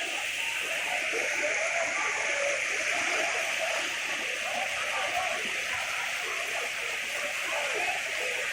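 Steady rush of flowing floodwater.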